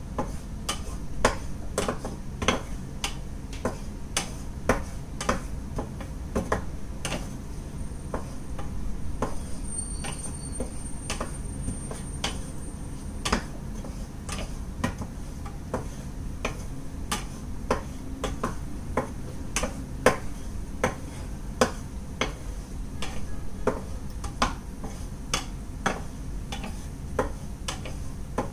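Wooden spatula stirring cashew nuts frying in ghee in a frying pan, with irregular clicks of spatula and nuts against the pan, about two or three a second, over a low steady hum.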